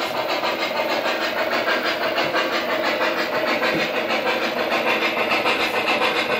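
O-scale model steam locomotive, a Norfolk and Western streamlined 4-8-4, running steadily along the track while pulling passenger cars. Its motor, wheels on the rails and sound system make a continuous mechanical running noise.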